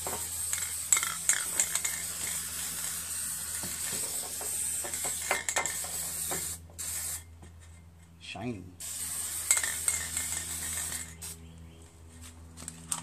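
Aerosol spray-paint can hissing as it sprays paint: one long spray of about six and a half seconds, then after a pause a second, shorter spray. A steady low hum runs underneath.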